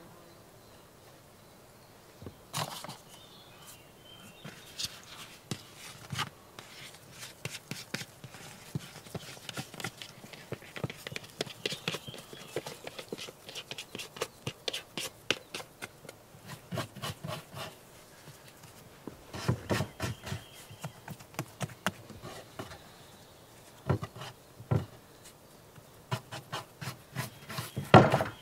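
Handling sounds of bread-making: irregular soft taps, knocks and rubbing as dough is worked on a floured wooden board, with a few low thumps about two-thirds of the way through and a paper flour bag rustling near the end.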